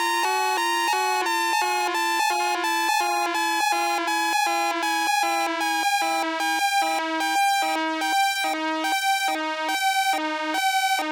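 Synthesized electronic alarm siren: a rapid train of short electronic tones stepping up and down between a few pitches, about two to three a second. Toward the end short gaps open between the tones, making it more pulsed.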